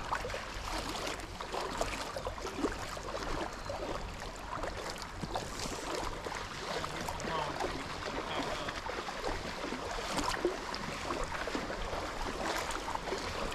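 Shallow river water running and rippling, with many small irregular splashes.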